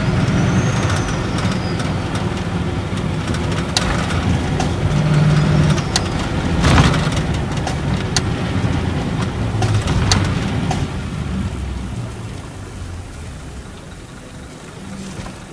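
Nissan Diesel Space Arrow RA coach's turbocharged inline-six diesel and torque-converter automatic, heard from inside the cabin while driving, with tyre and road noise and a few sharp interior rattles and clicks. Over the last few seconds the sound dies down steadily as the coach slows to stop.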